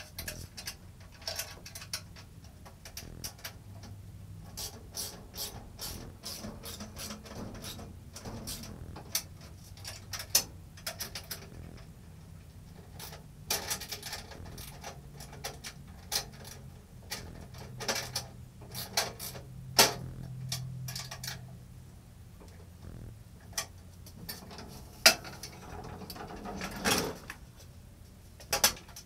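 Irregular metal clicks, clinks and knocks of parts and fasteners being handled while a RIDGID 10-inch table saw is assembled, with a few louder knocks.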